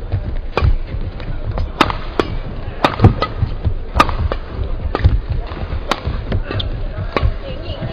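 Badminton rally: rackets striking the feather shuttlecock back and forth in a fast doubles exchange, about nine sharp smacks at irregular spacing, under low thuds of the players' footwork on the court.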